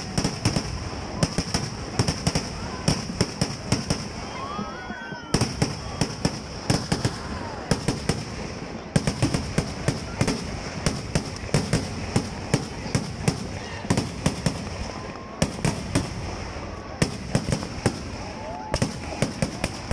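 Kerala temple vedikettu fireworks going off in a dense barrage, many sharp bangs a second and overlapping, with a brief let-up about five seconds in.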